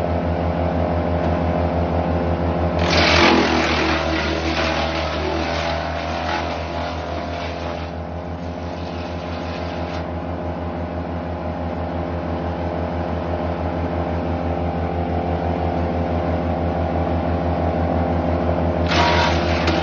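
Wood chipper engine running at a steady speed. About three seconds in, wood going through the chipper adds a loud, rough noise that dies away over the next several seconds, and it starts again near the end.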